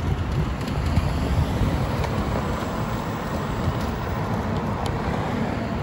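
Steady road traffic noise with low wind rumble on the microphone.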